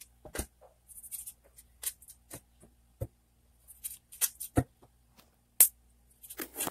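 Hands handling a whole raw chicken and limes in a metal pot: irregular rubbing and scraping noises with several sharp knocks.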